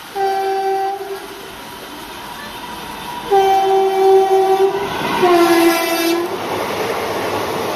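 Indian Railways train horn: a short blast, then a longer one, then a lower-pitched blast as the train passes at speed, followed by the steady noise of the train running by.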